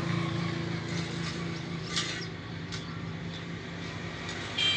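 A steady low hum over background noise, with a brief click about two seconds in and another near the end as a multimeter probe is handled on the circuit board.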